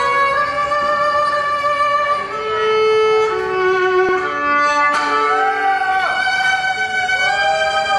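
A solo fiddle playing the national anthem as a slow melody of long held bowed notes, sliding up into some notes near the end.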